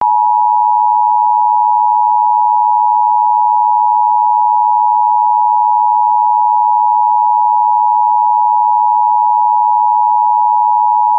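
Emergency Alert System attention signal: a loud, steady two-tone alarm of about 853 and 960 Hz. It starts abruptly and holds unchanged, marking an emergency alert broadcast.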